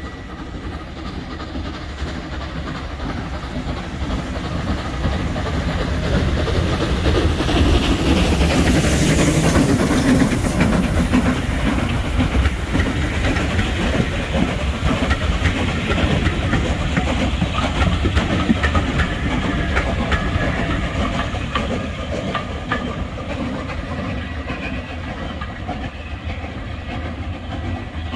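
Steam train passing, its wheels clattering over the rail joints with a hiss of steam. It grows louder to a peak about ten seconds in, with a sharp hiss at the loudest point, then slowly fades as it draws away.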